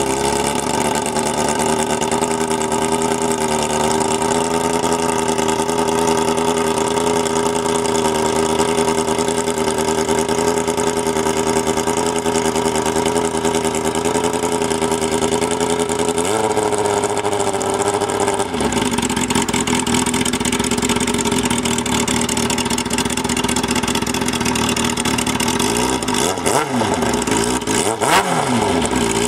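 2000 Kawasaki ZX-6R's inline-four running through an open or aftermarket exhaust, just after starting: a steady fast idle that dips and recovers about halfway through, settles lower, and near the end is revved in a couple of quick throttle blips.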